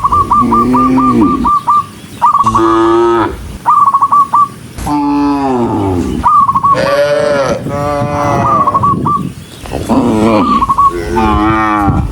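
Cattle mooing, about seven long calls one after another, some rising and falling in pitch. Between the moos come quick runs of short, high chirps, the longest early on at about six a second.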